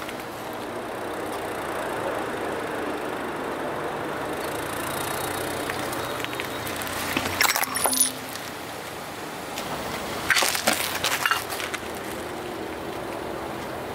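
Car engine running low as a tyre rolls slowly, then a burst of sharp cracking and crunching about seven seconds in as the tyre crushes a row of small jelly-filled cups. A few seconds later a second cluster of cracks and crunches as hard-shelled candies are crushed under the tyre.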